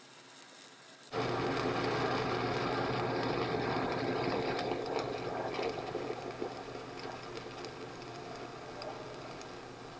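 Arc of a 7018 low-hydrogen stick electrode crackling steadily as it lays the first cap pass on a horizontal 2G groove weld. It starts about a second in and slowly gets quieter.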